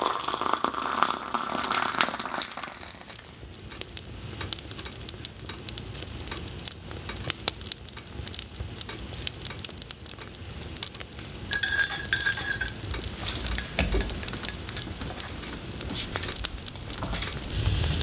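Kitchen clinks and stirring as a frothy hot drink is made in a ceramic mug: scattered light ticks and clinks, with a short high-pitched tone about twelve seconds in.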